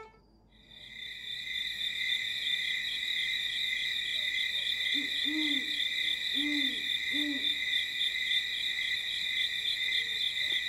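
Night ambience: a steady, high, pulsing chirring of insects, with an owl hooting three times about halfway through.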